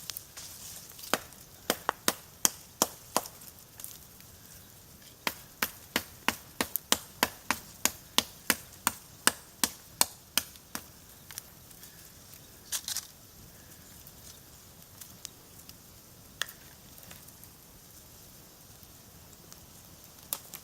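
Wood being chopped with a blade: sharp single knocks, a steady run of about three blows a second through the middle, then a few scattered strikes.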